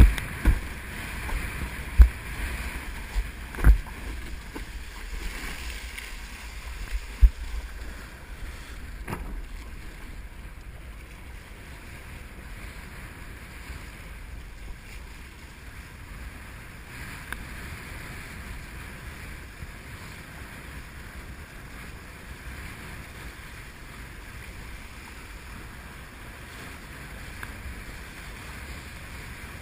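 Wind buffeting the camera microphone and water rushing past a windsurf board planing over chop. Several sharp thumps in the first eight seconds, then steadier rushing.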